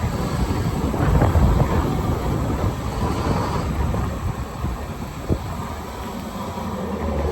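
Wind buffeting the microphone over the low rumble of a moving electric golf cart, swelling and easing, with a single sharp click about five seconds in.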